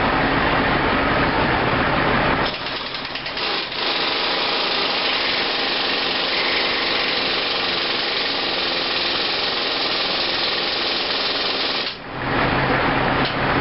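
A handheld power tool, worked on bolts overhead, running with a rapid rattle from about two and a half seconds in until about twelve seconds. Before and after it a steady low engine hum is heard.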